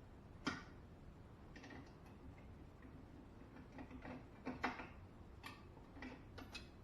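Scattered light metallic clicks and clinks of 17 mm wrenches, nuts and tie rod end parts being handled, at irregular intervals, the loudest a quick pair about two thirds of the way in.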